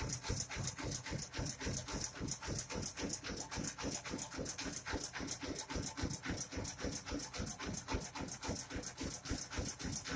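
Mobile rice milling machine running, its single-cylinder diesel engine beating evenly at about five or six beats a second, with a steady hiss from the mill over the top.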